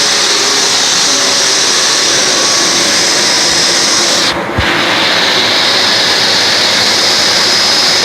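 Panasonic MC-UG304 2000-watt bagged vacuum cleaner running loudly with a faint high whine as it hoovers carpet. About four and a half seconds in, its sound briefly dips, with a low thud, then carries on as before.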